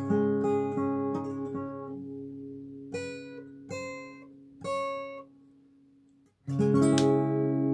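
Steel-string acoustic guitar played solo: picked notes fading over the first couple of seconds, then three single bright high notes, a short near-silent pause, and a final chord struck about six and a half seconds in and left to ring.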